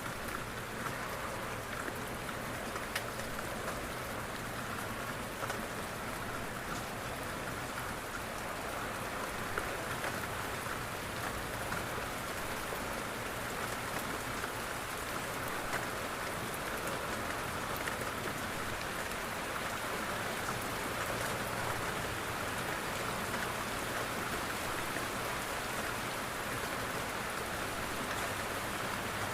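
Steady rain pattering on a window, with occasional louder drops.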